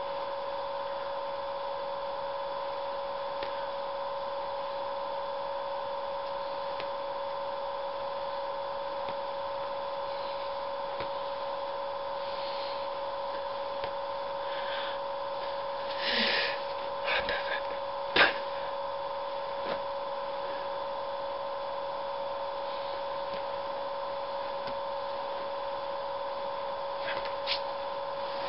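Steady electrical hum made of a few fixed tones, with brief rustles of a leather jacket as hands move and one sharp tap about 18 seconds in.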